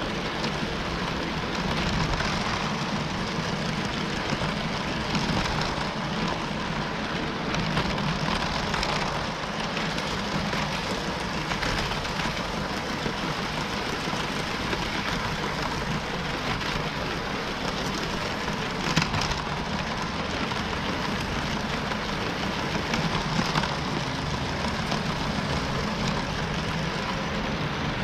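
Lego train's small electric motor running and its wheels rattling along plastic track, picked up by a camera riding on the train: a steady whirring noise with a faint constant whine, and one sharp click about nineteen seconds in.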